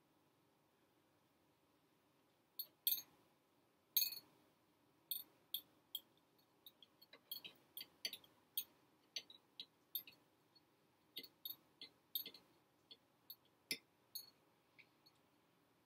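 A run of short, sharp, high-pitched clicks or chirps at irregular intervals, a few a second, starting a few seconds in. The two loudest come about three and four seconds in, over a faint steady hiss.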